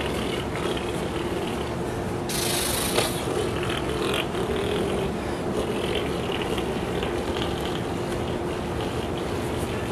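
A man doing a propeller-plane engine impression with his voice, a continuous engine-like drone. A single short knock sounds about three seconds in.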